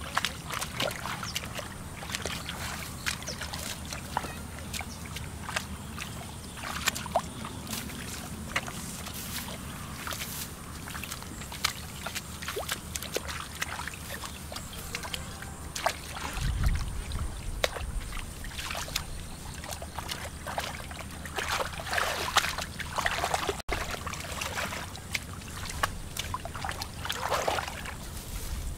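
Shallow muddy water sloshing and splashing irregularly as hands and feet grope through it for fish, with small trickles and scattered splashes. A brief low rumble comes about halfway through.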